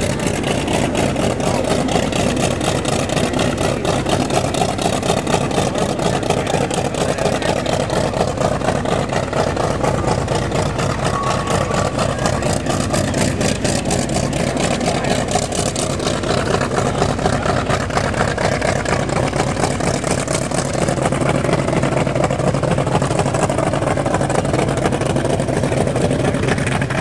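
Piston aero engine of a World War II warbird running at a steady idle on the ramp, a loud, even stream of rapid firing pulses.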